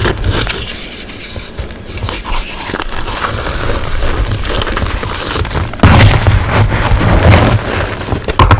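Blocks of gym chalk being crushed and crumbled right against the microphone: a dense crackling crunch with heavy low thumps, which gets suddenly louder about six seconds in.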